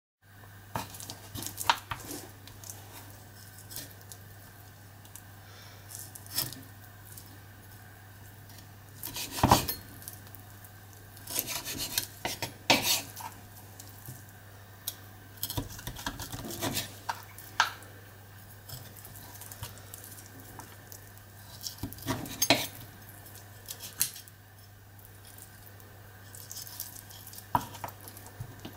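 Kitchen utensils and dishes being handled: scattered clinks and knocks of cutlery, bowls and pans on a worktop, over a steady low hum.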